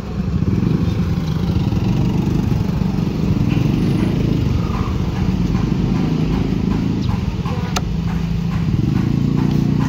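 A small engine running steadily with a low drone, and a single sharp click about eight seconds in.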